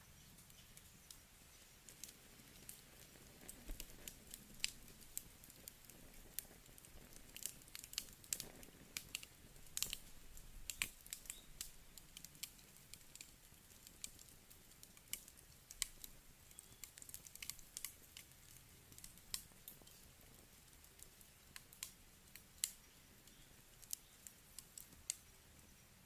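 Wood campfire crackling: irregular sharp snaps and pops, quite soft overall, coming thickest a little under halfway through.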